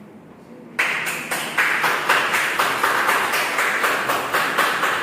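A group of people applauding, breaking out suddenly about a second in and keeping up a dense, steady clapping.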